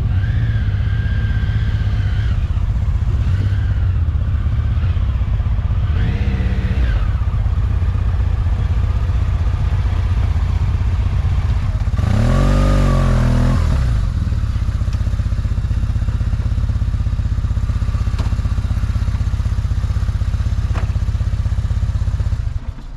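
Motorcycle engine running steadily while riding along a road, heard from on the bike. About twelve seconds in, a louder vehicle passes close by for a couple of seconds, its pitch rising and then falling.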